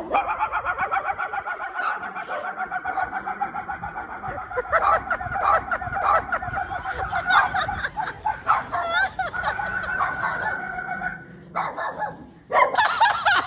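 A man's rapid-fire imitation of dog barking, fast even yaps at about five a second, kept up for about eleven seconds, breaking off briefly and starting again near the end.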